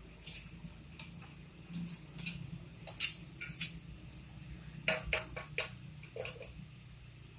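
A vinegar, water and sugar mixture boiling in a nonstick frying pan on high heat, with irregular small pops and ticks from bubbles bursting over a low steady hum.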